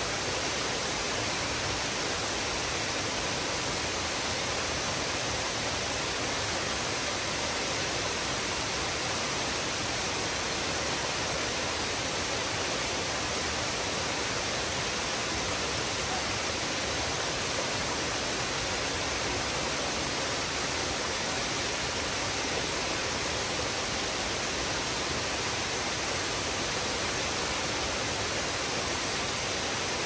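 Steady rush of a small tiered waterfall, water cascading down stepped rock ledges into pools.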